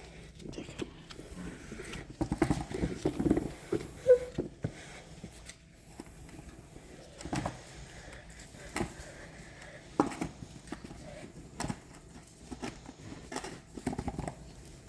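Plastic control valve head being screwed back onto a water filter tank: scattered knocks, clicks and scraping of the plastic parts, with a short squeak about four seconds in.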